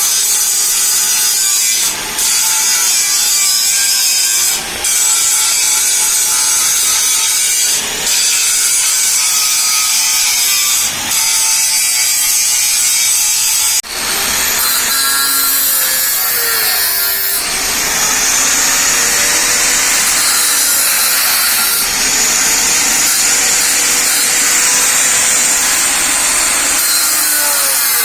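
A power tool grinding metal, running continuously and loudly, with brief dips every two to three seconds in the first half and a wavering motor pitch later on.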